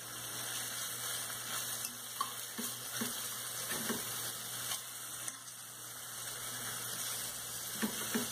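Beef and onion rings sizzling in oil in an aluminium pot, a steady hiss, with a few light clicks of a metal fork against the pot as they are stirred.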